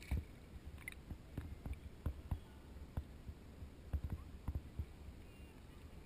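Irregular, muffled low thumps and knocks, several a second, over a faint low hum: small waves lapping and sloshing against a waterproof action camera's housing held half-submerged at the sea surface.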